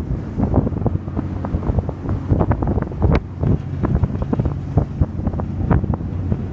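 Wind buffeting the microphone in irregular gusts on a ferry under way, over the steady low hum of the ferry's engines.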